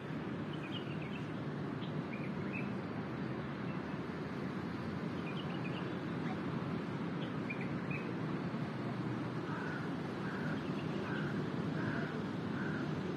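Outdoor ambience: a steady background rumble with small birds chirping now and then, and a run of about five short calls near the end.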